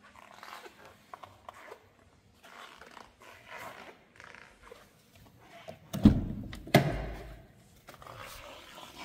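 An Audi RS6 Avant's door being unlatched and pulled open: two heavy thunks less than a second apart, about two-thirds of the way through, with soft handling rustle before and after.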